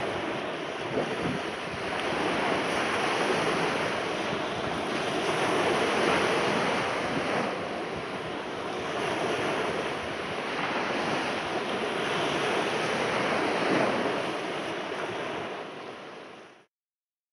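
A steady rush of wind and water, like waves washing in, swelling and easing slowly and fading out near the end.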